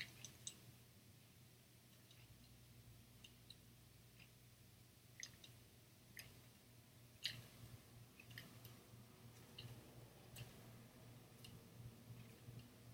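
Near silence with a faint low hum and scattered light clicks, about a dozen at irregular spacing, from handling a tripod's quick-release plate spun on its mounting screw.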